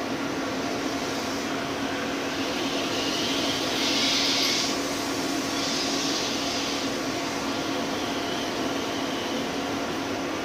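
Portable ventilation fan running with a steady whir and a constant hum. A stronger hissing rises about four seconds in and again about six seconds in.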